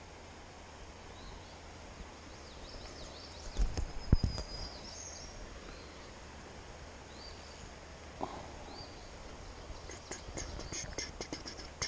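Small birds chirping in short, scattered calls over a quiet outdoor background. A burst of loud low thumps comes about four seconds in, and a run of sharp clicks and rustles near the end.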